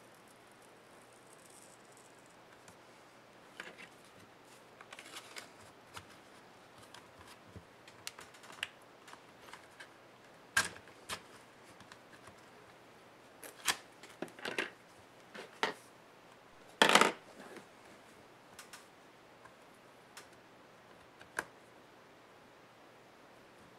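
Irregular small clicks and crackles of plastic and softened adhesive giving way as fingers pry a glued laptop display panel apart along its edge. The loudest is a short crackle about two-thirds of the way through.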